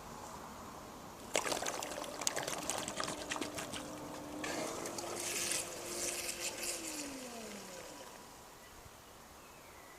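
Zodiac Vortex robotic pool cleaner thrashing at the waterline. About a second in, water starts splashing and pouring noisily, with the motor whining steadily under it. Near the end the whine drops in pitch and dies away as the motor winds down.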